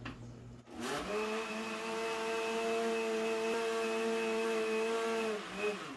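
Countertop blender starting about a second in, running at a steady speed as it blends a thin milky pudding mixture, then switched off and winding down near the end.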